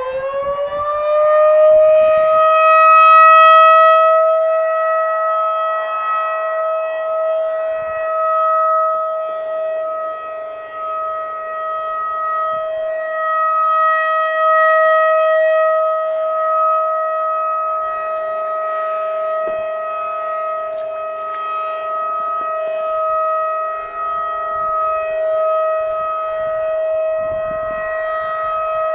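Federal Signal 2001-DC rotating outdoor warning siren finishing its wind-up about two seconds in, then holding one steady tone that swells and fades as the turning horn sweeps toward and away.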